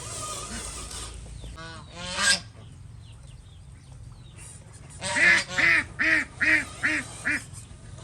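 Goose honking: a single call about two seconds in, then a quick run of six honks, about two and a half a second, growing shorter toward the end.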